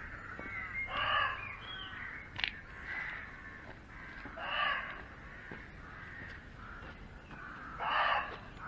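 Muntjac deer barking: three single short barks about three and a half seconds apart. It sounds like a dog barking.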